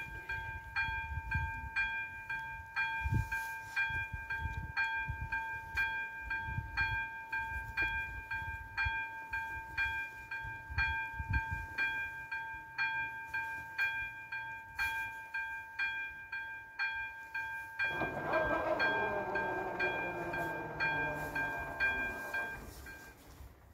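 Electronic warning bell of an AŽD railway level crossing sounding a repeated two-tone ding, about three strikes every two seconds, over an uneven low rumble. About eighteen seconds in, the barrier drive starts a whining mechanical run as the barrier arms lower. The bell falls silent a few seconds later as the barriers come down.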